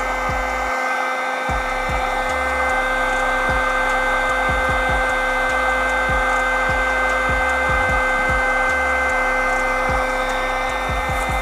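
A mini drone motor spinning a small propeller inside a 3D-printed bladeless fan, running at a steady high whine over an airy hiss. Short low bumps come and go underneath it.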